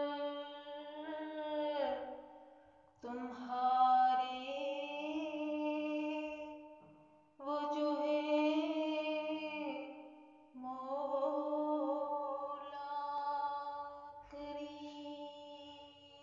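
A solo voice singing lines of an Urdu nazm unaccompanied, in long held, wavering notes, in four phrases with short pauses between them.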